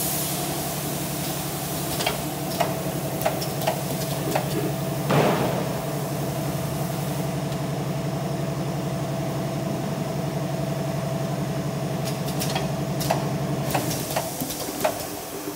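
Two-head auger powder filling machine running: a steady motor hum with a thin whine over it, broken by scattered clicks and knocks. The low hum stops near the end.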